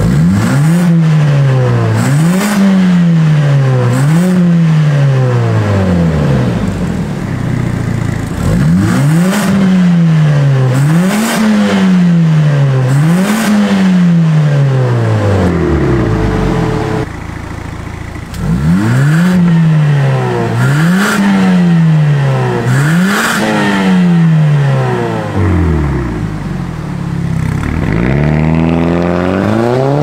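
Mercedes-AMG CLA45 S's turbocharged 2.0-litre four-cylinder, breathing through a Fi valvetronic cat-back exhaust with catless downpipes, blipped at a standstill: three sets of three quick revs, each rising and falling in pitch, with sharp crackles from the exhaust as the revs drop. The third set is with the exhaust valves open, and near the end the car pulls away with the engine rising in pitch.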